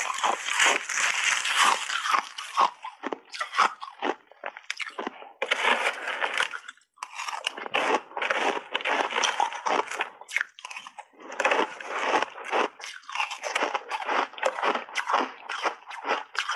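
Block ice crunched and chewed close to a lapel microphone: loud, dense crunching in several runs split by short pauses.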